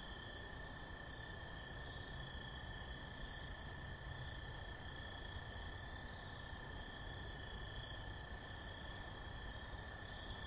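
Faint night chorus of crickets: a steady high chirring that swells and fades slightly, over a low, distant rumble.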